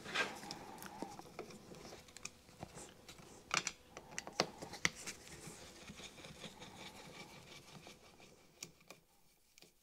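Faint, scattered clicks, taps and light scrapes of tools and small engine parts being handled during the strip-down of a small two-stroke motorcycle engine, with the clearest taps in the middle.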